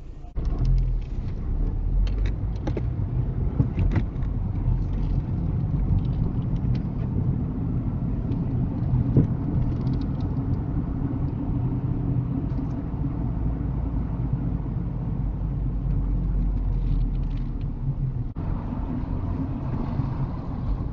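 Car cabin noise picked up by a dash cam while driving slowly on town streets: a steady low engine and tyre rumble, with a few sharp clicks and rattles in the first few seconds.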